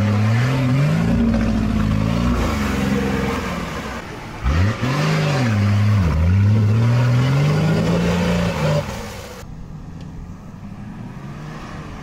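An off-road 4x4's engine revving under load, its pitch climbing, dipping sharply about four seconds in, then climbing again. About nine seconds in it cuts off abruptly to a quieter, steady engine sound.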